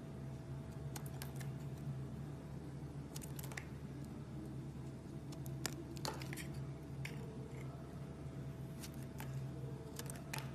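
Soap being cut: a series of short, irregular snaps and scrapes a second or two apart, typical of crunchy soap-cutting ASMR, over a steady low hum.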